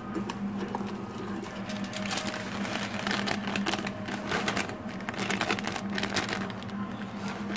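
Wire whisk scraping and clinking against a glass bowl as it stirs a dry, crumbly flour mixture, with quick repeated strokes through the middle few seconds. A steady low hum runs underneath.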